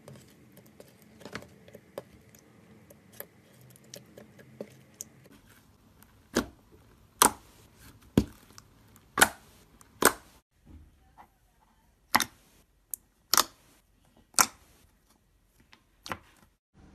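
Slime being poked and pressed by hand: faint sticky clicks at first, then from about six seconds in a string of loud, sharp pops roughly a second apart.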